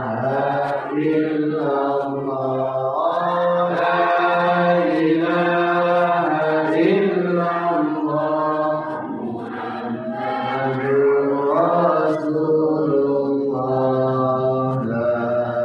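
A voice chanting Islamic dhikr in long, drawn-out melodic phrases, with one held note gliding into the next.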